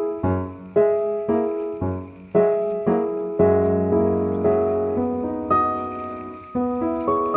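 Background piano music: a gentle tune of struck notes that each fade, about two a second, then longer held chords in the second half.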